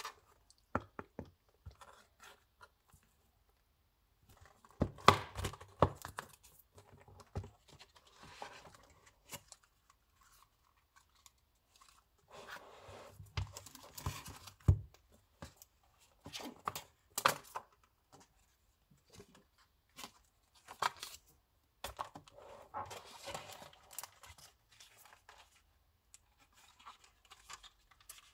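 Packaging being torn open and handled: irregular bursts of tearing and rustling with sharp clicks, separated by quiet pauses.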